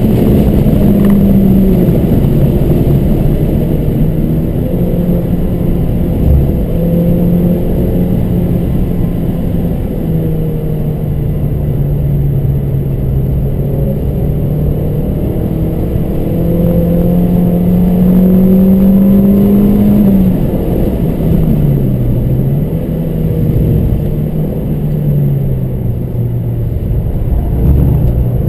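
Car engine at speed, its pitch climbing under acceleration and dropping sharply at gear changes and braking, over steady road and wind noise.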